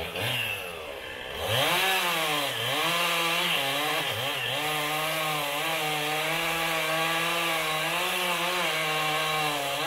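Gas chainsaw revving up about a second and a half in, then running at high speed, its pitch sagging briefly now and then as the chain bites into the wood.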